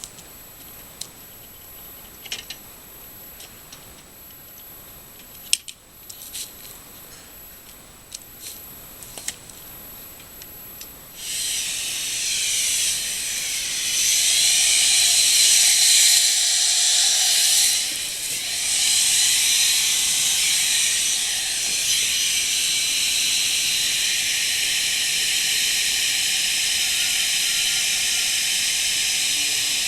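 A few light clicks and taps, then about 11 seconds in a hairdryer switches on and blows steadily with a loud hiss, melting ice off a snowblower's frozen flywheel. The hiss swells and dips briefly as the dryer is moved, then holds steady.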